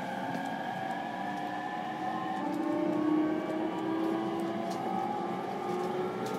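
E231-series electric train's VVVF inverter and traction motors whining, heard from inside the motor car: several tones slowly rise in pitch together as the train gathers speed.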